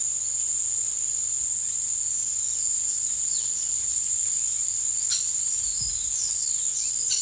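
Steady, high-pitched drone of insects such as crickets, with a few short, higher chirps over it around the middle.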